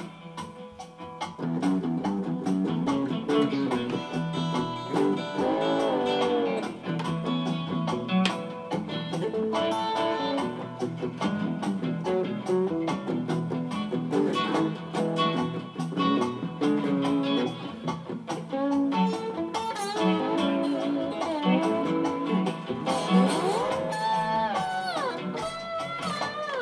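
Blues played on acoustic guitar and slide guitar, with the slide gliding up and down into notes several times, most clearly around six seconds in and over a stretch near the end.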